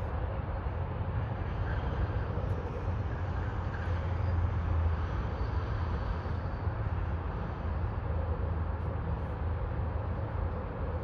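Jet airliner engines rumbling steadily, swelling a little in the middle, with a faint high whine.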